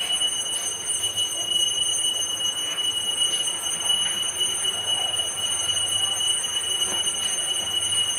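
A steady, high-pitched whistling tone held unchanged, with a few faint taps beneath it.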